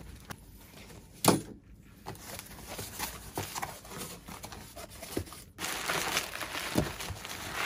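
Cardboard box handling, then plastic bubble wrap crinkling and rustling as hands work into it, with one sharp knock about a second in. The crinkling grows denser near the end.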